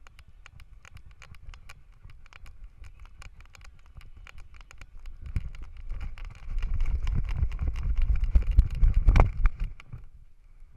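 Harness-mounted action camera on a running small dog: quick, regular clicking and knocking from the camera mount and the dog's footfalls, with a low rumble of jostling and wind on the microphone. The rumble grows much louder in the second half as the dog speeds up, and there is one heavier knock near the end.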